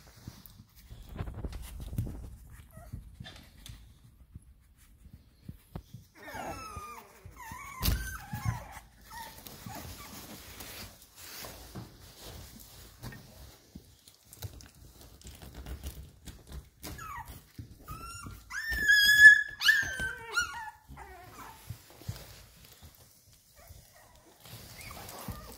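Boxer puppies giving short high-pitched cries, with one loud, longer squeal about three-quarters of the way through. There is scuffling and a soft knock in between.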